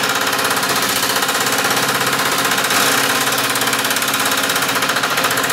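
Power hammer pounding a steel panel in a rapid, steady run of strokes, shrinking the outer flange of a wheel-well section.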